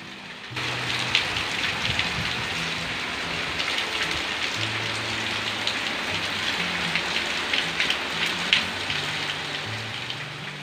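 Steady rain falling on wet concrete paving and garden soil, a dense hiss with the sharp ticks of single drops landing; it swells in about half a second in.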